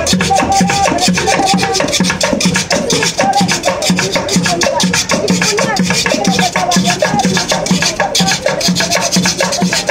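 Children singing over music with a steady, regular beat.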